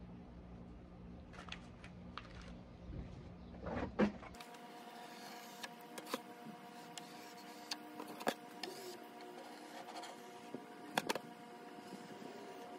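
Metal putty knife scraping stripper-softened paint off a wooden tabletop: faint scrapes and scattered sharp clicks and ticks, over a faint steady hum.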